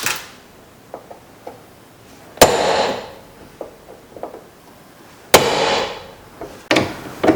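A hammer strikes a punch against the rivets that hold a car's exterior door handle, driving the rivet centres out: three hard metallic blows, each ringing briefly, with a few light taps between them.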